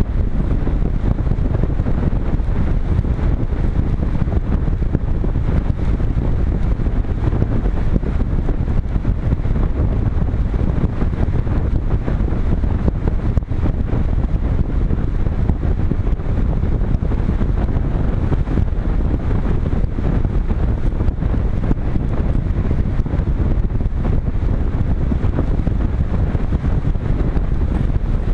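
Rushing airflow over the microphone of a GoPro Hero 3 mounted on a Multiplex Cularis RC glider in flight: a steady, loud, low rumbling wind noise. No motor tone comes through it.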